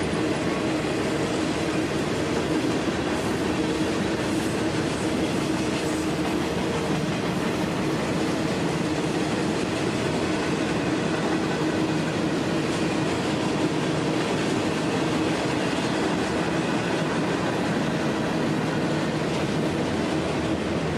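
Railroad cars rolling steadily past, wheels clicking over the rails, with a steady tone running under the rumble.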